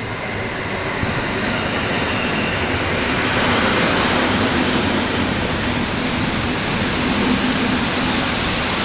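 EN57 electric multiple unit pulling into the platform and rolling slowly past. The sound is a rumble of wheels on rail that builds over the first couple of seconds, and a steady low hum joins it about two and a half seconds in.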